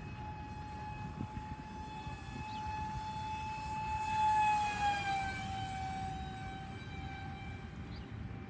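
Electric motor of a radio-controlled foam jet whining steadily in flight. It grows louder as the plane passes about four seconds in, then its pitch drops slightly as it flies away.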